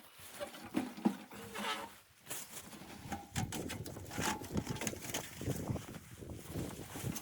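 A dog moving about, with an irregular patter of paws and scuffling, and a few short animal sounds.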